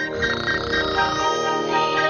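Background music: soft held chords with quick, repeating high twinkling notes over them.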